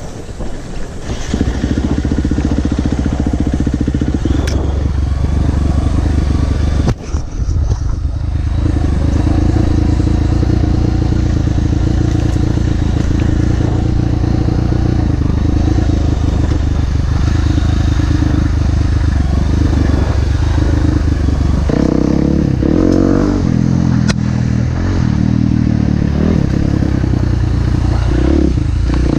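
Dirt bike engine running steadily at low revs while riding a trail, with a brief dip about seven seconds in and the revs rising and falling a few times about two-thirds of the way through.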